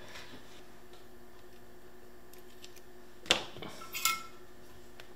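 Small metal tools clicking and clinking on a workbench as they are picked up and set down, a few sharp knocks about three seconds in, one of them briefly ringing. A steady electrical hum underneath.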